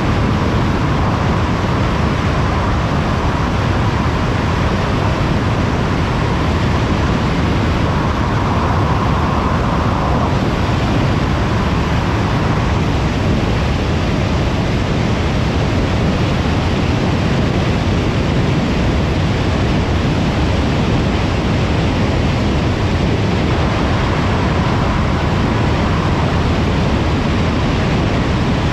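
Steady road noise of a car driving at motorway speed: an even rush of tyre and wind noise with a low rumble, a faint hum swelling and fading now and then.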